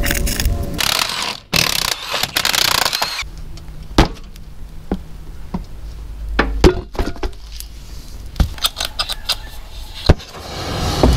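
Scattered metallic clanks and knocks from tools and tractor parts being handled, after a noisy stretch in the first three seconds. A gas cutting torch is lit about ten seconds in and runs with a steady hiss.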